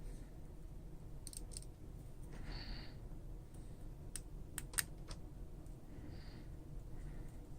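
Faint, scattered small clicks and taps of a precision screwdriver and tiny screws against the metal parts inside an iPhone 5s, as the screws are driven down. A close pair of sharper clicks comes about four and a half seconds in.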